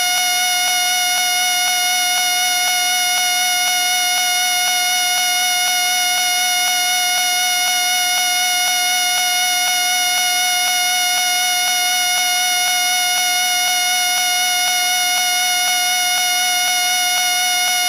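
A whistle sounding one continuous, steady high tone without a break, with a faint wavering undertone beneath it.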